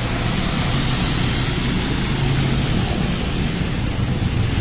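A low steady engine hum, as of a car idling, under a constant rushing noise with no distinct events.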